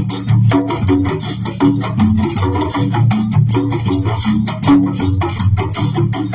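Drum circle playing together: many hand drums beating a steady, fast shared rhythm, with shakers and other small percussion rattling over it.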